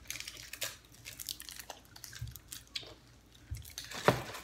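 Close mouth sounds of chewing soft, jelly-filled fruit chews: irregular wet clicks and smacks, with one louder sharp tap near the end.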